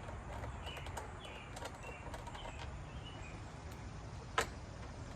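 Small birds chirping repeatedly in the background, with scattered light clicks and one sharper click a little over four seconds in as the recoil starter's bolts are put back in by hand.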